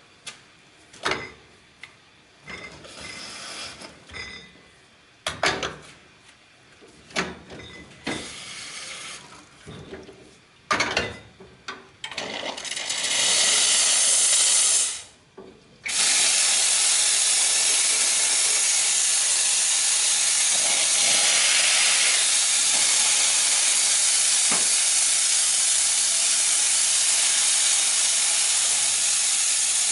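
Steam wands of an Astoria Rapallo lever espresso machine being opened to blow off steam: a loud, steady hiss starting about twelve seconds in, breaking off briefly near fifteen seconds, then running on. Before it, a few scattered knocks and clicks.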